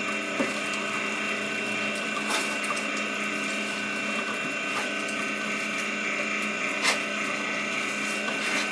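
Heavy-duty 1.5-horsepower stainless electric meat grinder running steadily with a hum while it grinds meat scraps being pushed into its throat, with a few sharp clicks, the loudest near the end.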